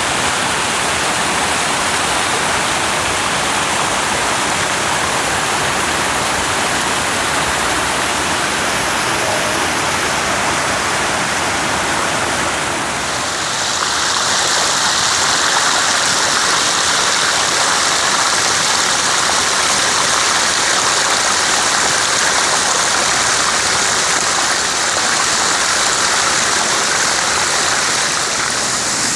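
Waterfall's rushing water, a loud, steady wash of noise. About 13 s in, it turns brighter and hissier.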